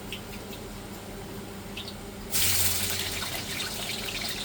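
Quiet frying for about two seconds, then a sudden loud rush of running water starts and keeps on.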